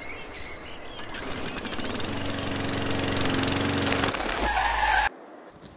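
An engine running and growing steadily louder over about four seconds, then cut off suddenly about five seconds in. Light bird chirps are heard at the start.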